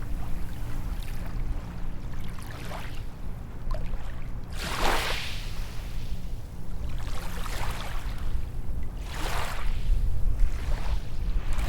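Small waves washing onto a sandy beach, one hissing wash every two to two and a half seconds over a steady low rumble.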